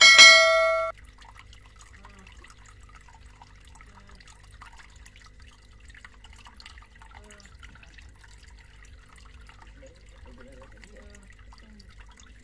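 A short, bright ringing tone sounds for just under a second at the start and cuts off sharply. It is the loudest sound here. After it comes the faint, steady trickling and dripping of water from a small homemade plastic-bottle and PVC-pipe waterfall fountain.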